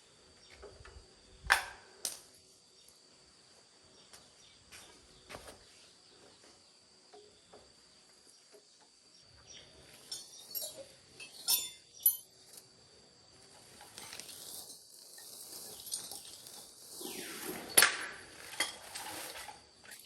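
Scattered metallic clinks and knocks, the kind made when tools and machine parts are picked up and set down, with a stretch of rough rustling near the end. A steady high insect drone runs underneath.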